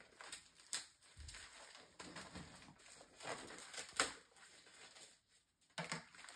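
Toy packaging being handled and opened: scattered small clicks, taps and rustles of plastic and paper.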